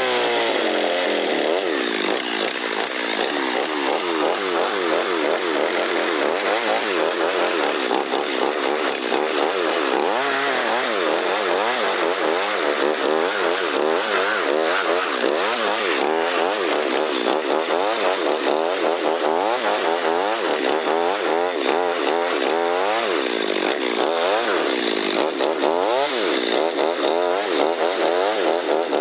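Small petrol engine running, its pitch swinging up and down over and over in quick succession, as in sped-up time-lapse audio.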